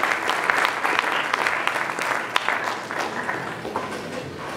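Audience applauding: a small crowd clapping, the claps thinning and fading toward the end.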